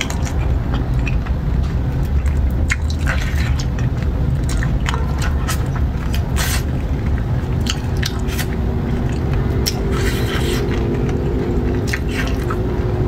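Close-up wet eating sounds of sauce-covered chicken feet being chewed and sucked: squelches, lip smacks and irregular sharp clicks over a steady low rumble.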